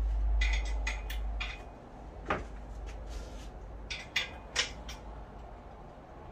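Scattered clicks and knocks of hardware being handled while an electric hoist motor is mounted on an overhead wooden beam, with one louder knock a little over two seconds in. A low rumble fades out about a second and a half in.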